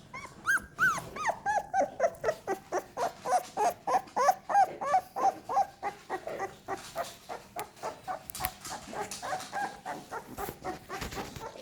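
Young American Staffordshire terrier puppies whimpering and squealing in a quick run of short, high cries, about three or four a second, the first few louder and higher-pitched. The crying is taken for the pups wanting their mother.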